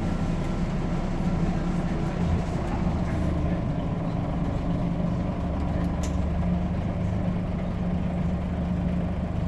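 Scania N94UD double-decker bus's five-cylinder diesel engine running with a steady, even hum.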